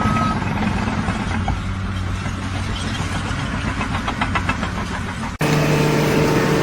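An engine running steadily, with a quick run of ticks a little past the middle. About five seconds in it cuts off abruptly to a different steady hum.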